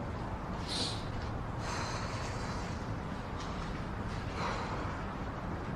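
Steady low background rumble, with a few faint, brief hissing sounds over it.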